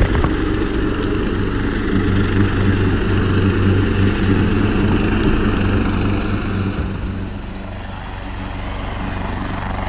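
Coastguard search-and-rescue helicopter hovering low, its rotor and engines running loud and steady. It dips briefly near the end.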